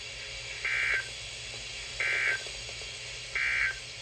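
Emergency Alert System end-of-message signal: three short bursts of digital data tones, each about a third of a second long and roughly 1.4 seconds apart, marking the end of the weather radio alert.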